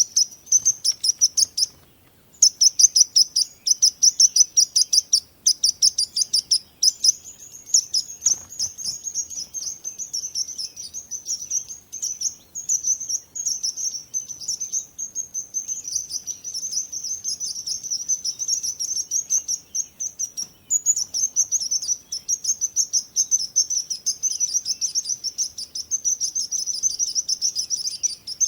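Small birds chirping rapidly and continuously in dense, high-pitched chatter, many chirps a second, with a brief pause about two seconds in.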